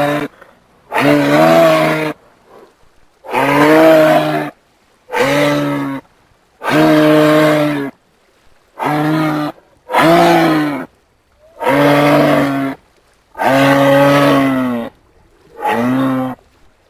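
Repeated moo-like calls from a large animal, about ten in a row, each about a second long, with short pauses between.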